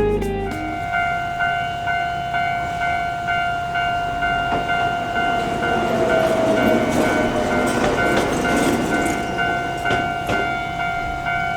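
Japanese level-crossing warning bell ringing in evenly repeating dings. A Gakunan Railway electric train rumbles across the crossing partway through, loudest about six to nine seconds in.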